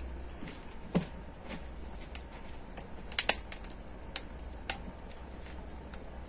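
Wood fire crackling in a steel mangal, with irregular sharp pops and snaps, two of them in quick succession about three seconds in.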